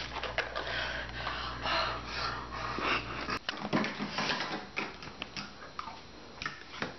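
Handling noises of a jar and spoon: rustling and a jar lid being twisted, then scattered light clicks of a spoon against the jar. A steady low room hum stops abruptly about three and a half seconds in.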